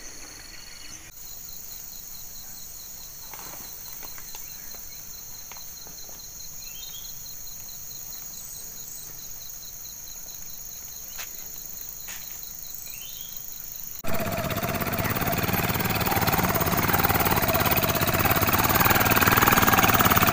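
A steady, high insect chorus with a fast pulsing trill, with a few short rising bird chirps over it. About two-thirds of the way through, it cuts suddenly to a much louder, even rushing noise.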